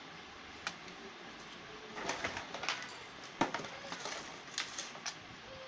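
Handling noise: scattered clicks, knocks and rustling as a plastic toy car and its cardboard box are moved about on a hard floor, with one sharper knock about three and a half seconds in. A faint, low cooing call is heard under it.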